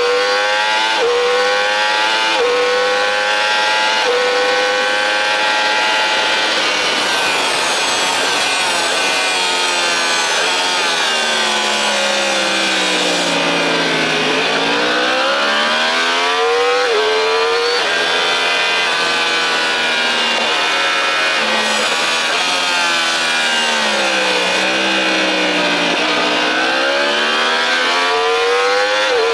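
High-revving sport motorcycle engine heard from on the bike at racing speed: the revs climb in steps with a gear shift every second or so, fall away steeply to a low point about halfway through as the bike slows, climb again, dip once more and rise near the end. Wind rush on the microphone runs underneath.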